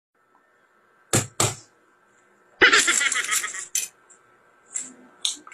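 Two sharp taps, then about a second of dense crackling and a few small clicks near the end: a balut duck eggshell being cracked and picked apart over a plate.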